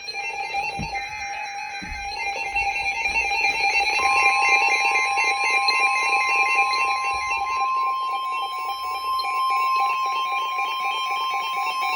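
NOAA Weather Radio's 1050 Hz warning alarm tone: a loud, steady single tone that starts about four seconds in and holds, signalling that a warning is about to be read. Underneath it runs a fast, repeating pattern of other tones.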